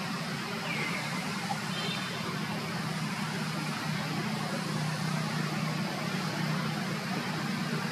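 Steady outdoor background noise, a low hum under an even hiss, like a motor running at a distance. A brief high chirp sounds just under a second in.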